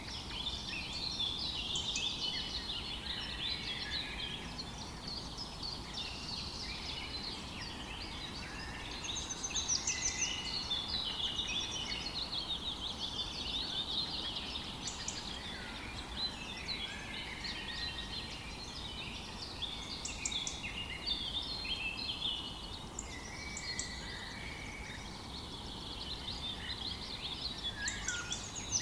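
Several songbirds singing and chirping at once, a dense chorus of overlapping trills and calls, over a steady low rush of flowing river water.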